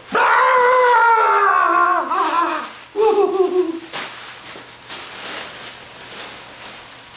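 A man's long, high-pitched cry of surprise, falling in pitch, then a shorter second cry about three seconds in: a startled reaction to a spider.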